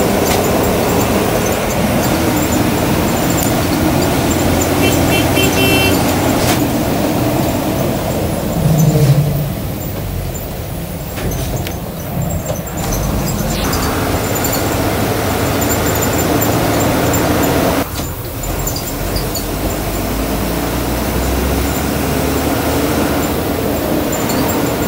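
Bus engine and road noise heard from inside the cabin while driving in heavy rain: a continuous low rumble under an even hiss of tyres and rain. A few short high beeps come about five seconds in.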